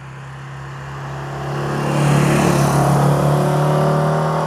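Classic Porsche 356's air-cooled flat-four driving past. The steady engine note grows louder about two seconds in, then drops in pitch and fades as the car goes by near the end.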